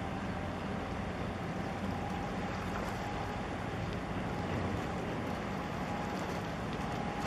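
Steady low drone of a ship's engine on the water, with wind buffeting the microphone.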